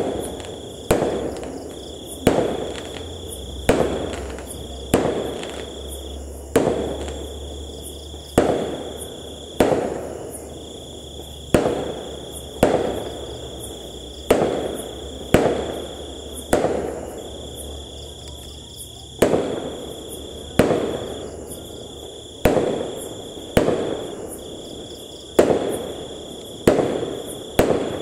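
Aerial fireworks going off one after another, a sharp bang roughly every second or so, each trailing off in an echo.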